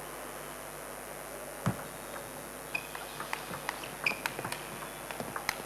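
Table tennis rally: the celluloid ball clicking sharply off bats and table in quick succession, about four or five clicks a second, starting a little under 3 s in. A single low thump comes before the rally, and a couple of short squeaks are heard among the clicks.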